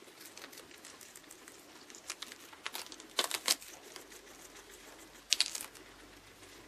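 Guinea pig moving about, its paws rustling and crinkling on bedding with quick clicking scrabbles, loudest in two short bursts a few seconds apart.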